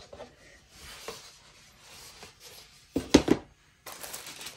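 Hermès cardboard gift box being opened: soft rubbing and sliding of the lid, a brief loud knock about three seconds in, then tissue paper rustling near the end.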